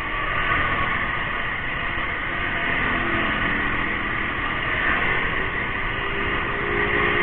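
Steady rush of wind and road noise on the microphone while riding, with a faint hum that rises a little in pitch in the second half.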